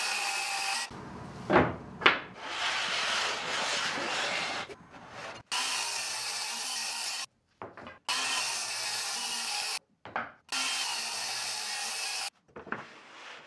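Wood being rubbed or scraped in a series of short steady stretches, each cutting off abruptly, with two sharp knocks between the first and second stretch.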